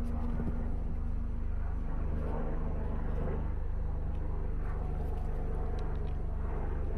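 Motorcycle engine running steadily, a low, even pulsing throughout.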